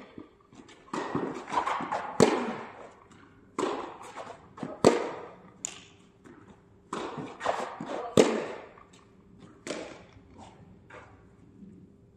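Tennis rally: a tennis ball struck by rackets and bouncing on the court, a sharp impact about every second and a bit, with the hardest hits a little after 2, 5 and 8 seconds in. The play dies away near the end.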